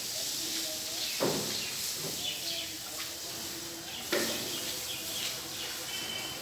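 Outdoor background noise with a steady hiss and short bird chirps, broken by two sudden knocks, about a second in and about four seconds in.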